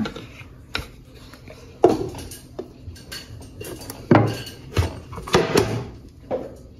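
Metal loaf tin knocking and clattering against a wooden chopping board as a baked cake is turned out of it, about half a dozen separate knocks, some with a short metallic ring.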